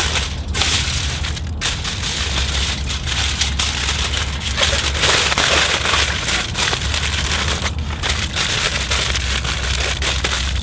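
Aluminium foil being crumpled, folded and pressed by hand around a foil packet: a continuous crinkling with many small crackles. Under it runs the steady low drone of a plane passing overhead, which is super loud.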